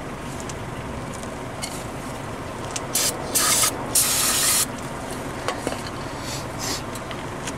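Aerosol brake cleaner sprayed onto a disc brake caliper's piston boot in three short hissing sprays, about three to four and a half seconds in, the last the longest.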